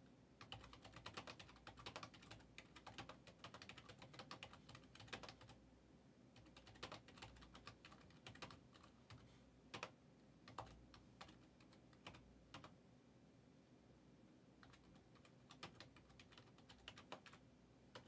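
Faint typing on a computer keyboard: quick runs of key clicks for about the first five seconds, then scattered single keystrokes.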